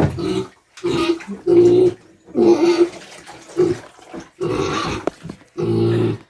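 Young pet pig squealing and screaming in repeated harsh cries, about seven in six seconds, in distress while being bathed.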